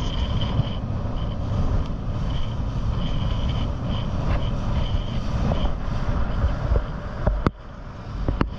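Motorboat engine running under way, with wind buffeting the microphone. A sharp knock comes about seven and a half seconds in, after which the sound quietens, then a second click.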